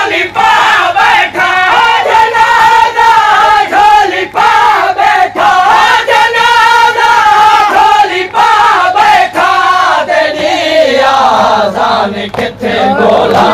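Men's voices chanting a Siraiki noha, a Shia mourning lament, in chorus, on long wavering held notes over the noise of a packed crowd.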